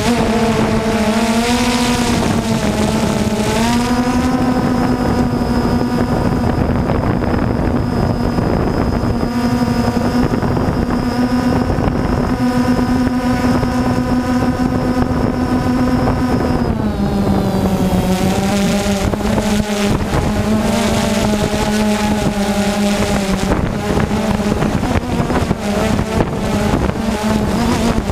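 Small camera drone's electric motors and propellers humming steadily in flight, the pitch stepping up about four seconds in and dropping about seventeen seconds in, with a faint high whine between, and wind rushing over the microphone.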